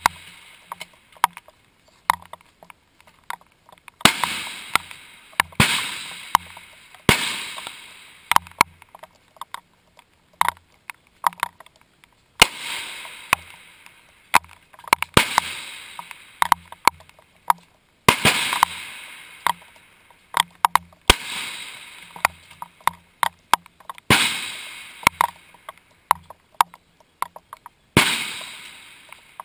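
Centrefire rifle shots on a firing line: about a dozen at irregular intervals, each with a short echoing tail, and quieter sharp clicks in between.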